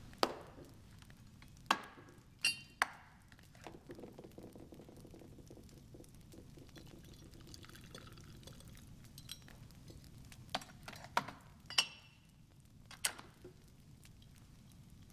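Glass and ice clink in a tumbler at a drinks tray, some strikes ringing like crystal. In between, liquor is poured from a cut-crystal decanter over the ice, followed by a few more ringing clinks of crystal and glass.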